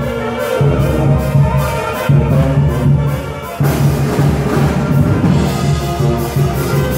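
Brass band music: a sousaphone plays a pulsing bass line under brass horns and percussion, with a steady dance beat.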